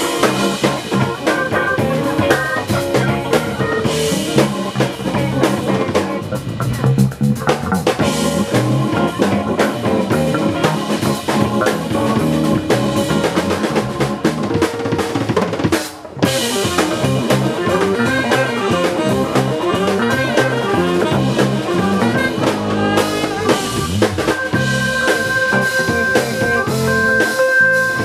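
Live band playing an instrumental passage with a busy drum kit to the fore, snare and bass drum plainly heard. The band stops for a moment about halfway through, then comes back in.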